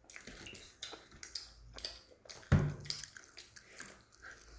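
Children eating pizza: chewing and mouth clicks with small crackles of the food and the cardboard pizza box being handled, and one louder thump about halfway through.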